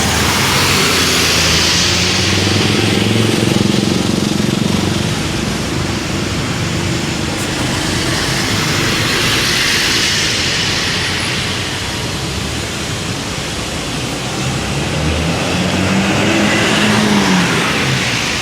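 Large coach buses driving past one after another, their engine and tyre noise swelling and fading as each goes by, with three loudest passes.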